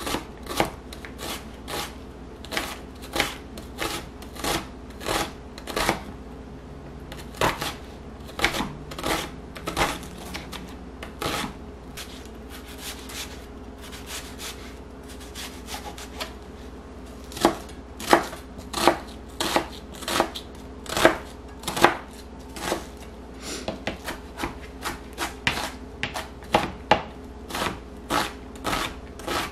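Chef's knife chopping onion on a plastic cutting board: a run of sharp knocks of the blade hitting the board, roughly two a second, thinning out for a few seconds near the middle. A faint steady hum runs underneath.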